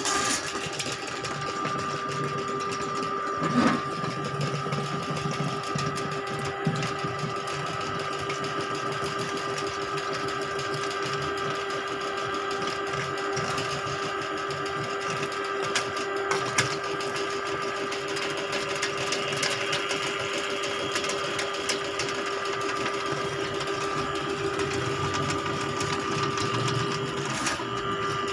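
Electric drain-cleaning machine running steadily with a constant motor hum, with a few brief knocks.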